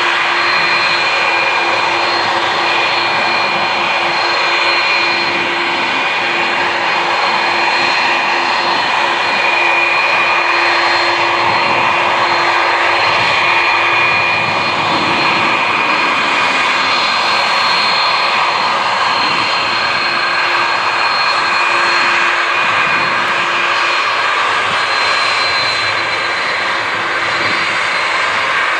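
Jet engines of a Boeing 747 freighter on the runway, running loud and steady with a high whine over a broad roar. About halfway through a low tone drops in pitch as the aircraft moves.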